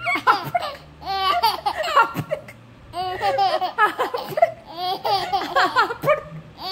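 Baby laughing in repeated bouts of quick laughs, with short pauses between them.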